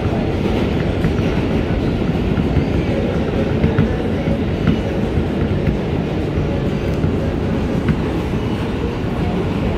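R160B Siemens subway car running through a tunnel, heard from inside the car: a steady, loud rumble of wheels on rail, with a few sharp clicks of the wheels over rail joints.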